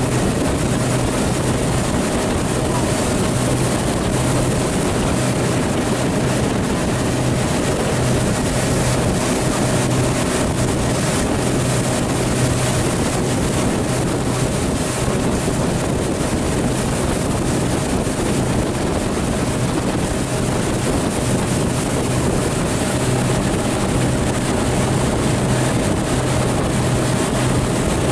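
Motorboat engine running steadily at cruising speed, a constant drone, with water rushing past the hull and wind buffeting the microphone.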